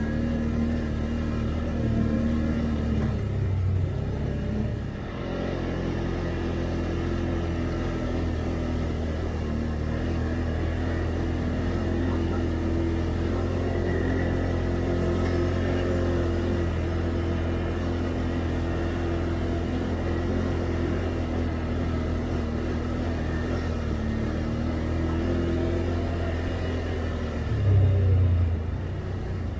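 Can-Am Outlander 850 ATV's V-twin engine running steadily under way on a trail, its note shifting a little now and then. There is a brief louder surge near the end.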